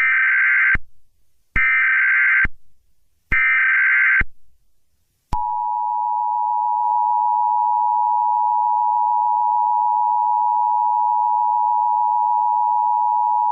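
Emergency Alert System test: three short bursts of SAME header data, then the two-tone EAS attention signal (853 and 960 Hz together) sounding steadily from about five seconds in.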